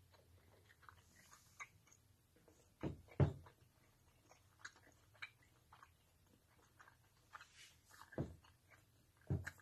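Quiet scattered clicks and rustles, with a few short, soft thumps from a cat moving about and nosing against the phone on the table.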